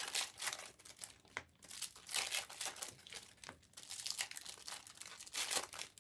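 Plastic trading-card pack wrappers crinkling in irregular bursts as packs are handled and torn open, with a couple of sharp clicks.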